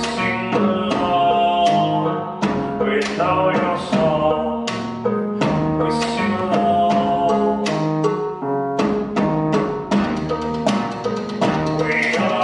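Music: held pitched notes over repeated sharp percussive hits.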